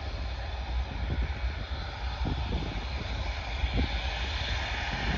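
Antonov An-124's four turbofan engines at takeoff power during the takeoff roll, heard from a distance as a steady rushing jet noise. Under it runs a low, irregular, gusty rumble.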